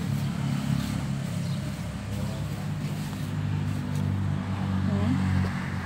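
A steady low mechanical hum, like a motor or engine running.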